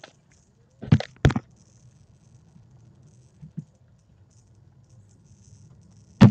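Two quick knocks from handling a smartphone, a fraction of a second apart about a second in, then a faint low hum, with another sharp knock near the end.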